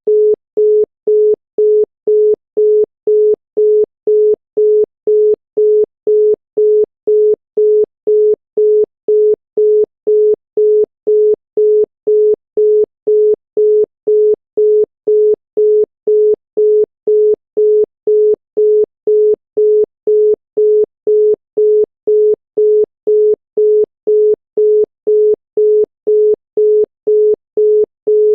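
Brazilian telephone busy tone: a single 425 Hz tone beeping on and off in even quarter-second pulses, about two beeps a second, signalling that the called line is busy.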